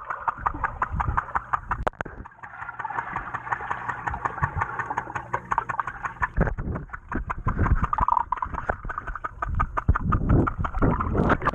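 Muffled underwater sound picked up by a camera held below the surface of a swimming pool: a steady hiss with rapid crackling clicks throughout and a few low thumps from movement in the water.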